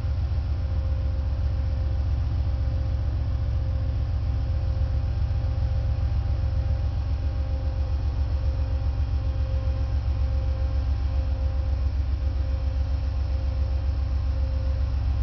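Ferrosur diesel-electric freight locomotives passing slowly, their engines giving a steady low rumble with a constant hum above it.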